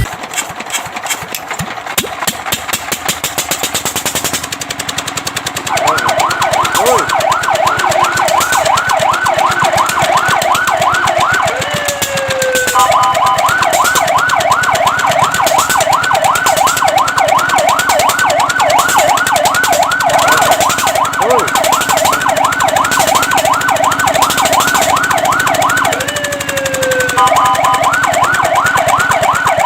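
Fire truck siren in a fast yelp, a rapid up-and-down wail a few cycles a second, coming in about six seconds in after a loud rattling noise. Twice it breaks briefly into a short steady tone with a falling sweep before the yelp resumes.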